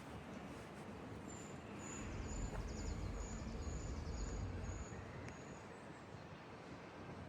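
A small bird calling a series of about nine short, high, thin notes, about two a second, over a low rumble that swells for a few seconds in the middle.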